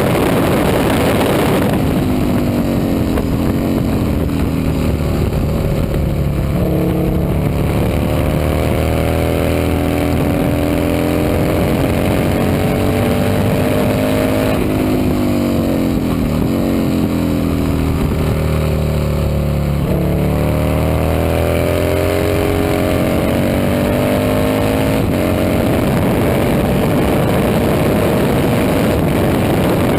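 Vintage racing motorcycle engine at high revs, its pitch climbing steadily and then dropping sharply several times as it shifts gears or comes off the throttle. A loud rushing noise fills the first two seconds.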